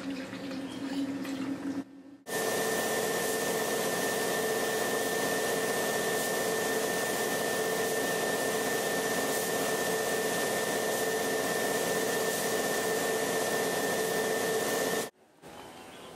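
Gravity-feed paint spray gun hissing steadily as compressed air and paint go through it, with a thin steady whistle over the hiss; it starts abruptly about two seconds in and cuts off about a second before the end.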